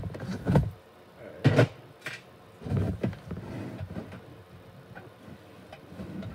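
Hands handling agar plates and tools on a plastic surface: a run of knocks and bumps with rustling in the first three seconds, the loudest about half a second and a second and a half in, then quieter handling noise.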